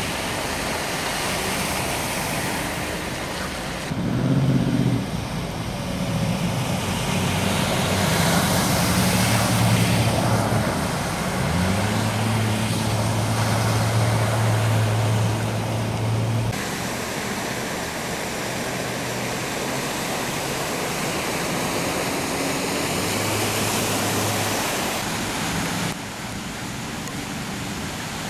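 Cars and a pickup driving through deep floodwater on a street, their tyres throwing up heavy sprays of water over a continuous rushing noise. Engine hum of passing vehicles rises in the middle stretch, and the sound changes abruptly a few times between shots.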